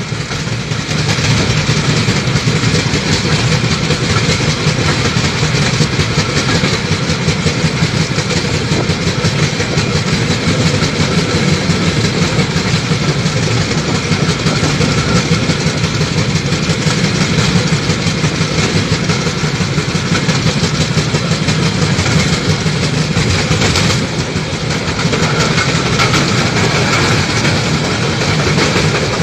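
Railway inspection motor trolley running along the track: its engine and the rattle of its wheels on the rails make a loud, steady noise, dipping briefly about three-quarters of the way through.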